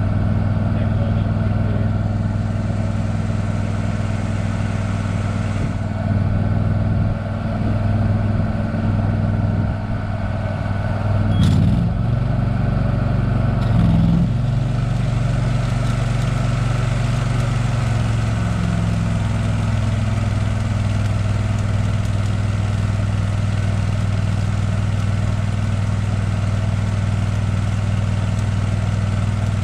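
An engine running steadily at idle, with its note shifting and wavering for several seconds about a third of the way in before settling again.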